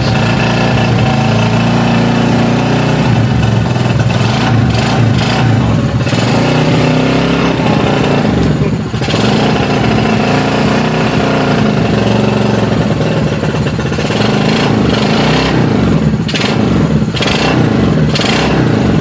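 Honda C90's single-cylinder four-stroke engine idling steadily, its speed rising and falling slightly now and then. The engine is running cold, shortly after its first start following a full restoration.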